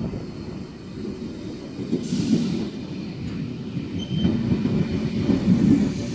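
Sydney S-set double-deck electric train rolling along the platform, its wheels rumbling on the rails, with a brief hiss about two seconds in.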